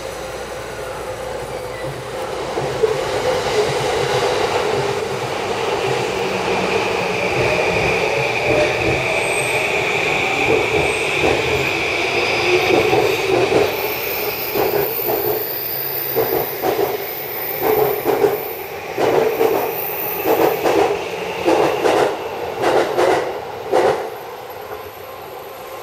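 JR East E235 series Yamanote Line train pulling out of the platform: its electric traction motors whine, rising in pitch as it accelerates. In the second half the wheels clack rhythmically over rail joints, about one to two clacks a second, until the last car has passed, shortly before the end.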